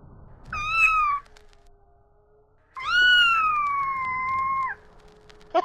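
Domestic cat meowing twice: a short meow, then a long drawn-out meow that slowly falls in pitch.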